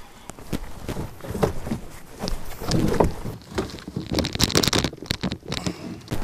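Irregular knocks, thumps and rustling from a trout being reeled in and handled in a fishing boat, with a short noisy rush about four seconds in.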